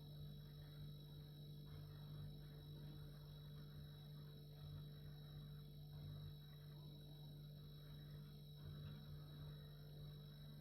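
Refrigerator running with a steady, faint low hum, with a thin high whine above it.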